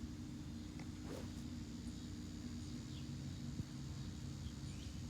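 Quiet outdoor ambience: a steady low hum with a few faint, short bird chirps and one small click a little past halfway.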